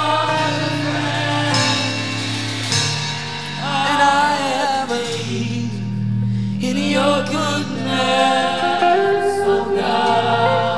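Slow live gospel worship song: held keyboard chords with singing voices rising and falling over them.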